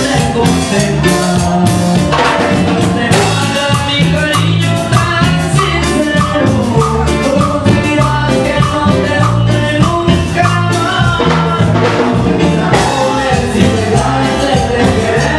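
Live band playing loud, amplified Latin dance music: a stepping bass line under drums and percussion, with melody and singing over it.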